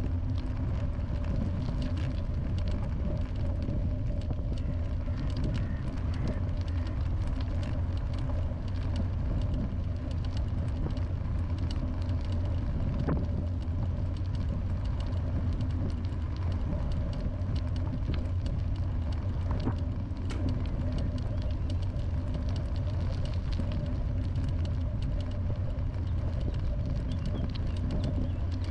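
Steady, even drone of a vehicle in motion, a low motor hum with running noise over it and small scattered ticks and knocks.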